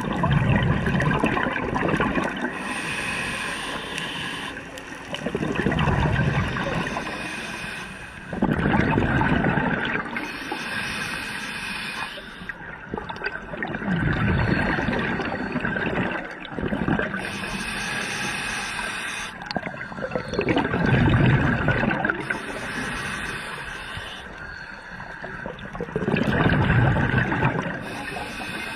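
Scuba diver breathing through a regulator underwater: a short hiss on each inhale and a bubbling rush of exhaled air on each exhale, repeating about every five seconds.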